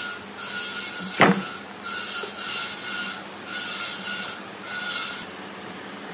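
A hand tool rubbing over wood in repeated back-and-forth strokes, about one a second, six in all, with a sharp knock about a second in. The strokes stop shortly before the end.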